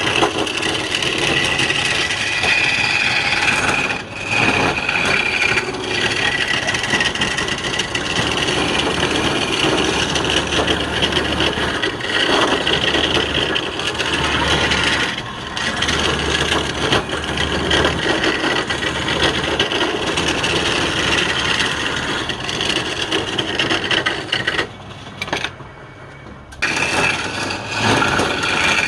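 Wood spinning on a lathe being worked with a turning tool: a steady scraping, rasping noise. It drops away briefly about 25 seconds in, then resumes.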